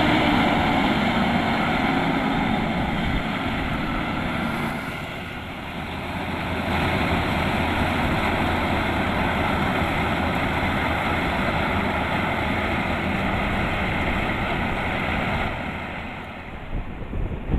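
Kubota DC-105X rice combine harvester running steadily, its diesel engine and threshing machinery making a continuous noise, with wind buffeting the microphone. The noise dips briefly about five seconds in and again near the end.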